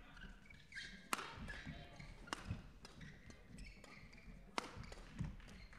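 Badminton rally: three sharp racket strikes on the shuttlecock, the last two about two seconds apart, with players' shoes squeaking and footfalls thudding on the court between shots.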